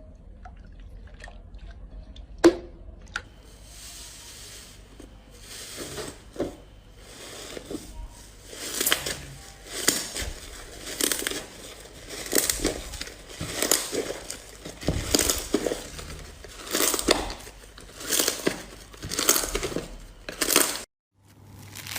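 Slime being squeezed and pressed by hand, giving crackling, crinkly strokes about once a second that grow louder about a third of the way in, after a few sharp clicks at the start.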